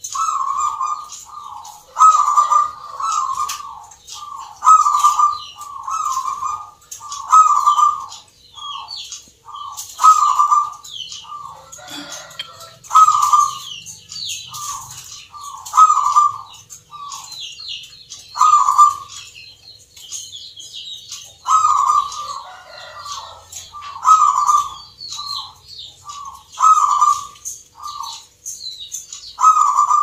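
Caged zebra dove (a local Javanese perkutut) singing: short cooing phrases repeated about once a second, pausing for a couple of seconds past the middle before starting up again. Fainter high chirps of small birds run above it.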